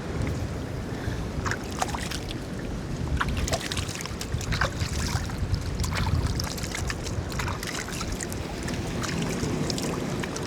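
Ocean swell surging and washing over rocks, with wind rumbling on the microphone and scattered light clicks throughout.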